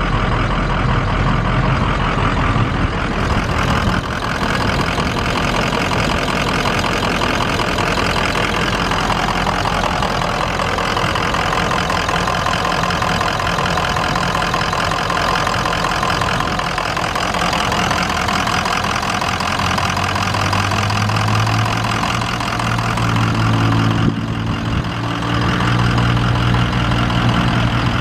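Ford 6.0L V8 diesel engine idling steadily, with a clattering diesel tick. A deeper low hum comes up about twenty seconds in.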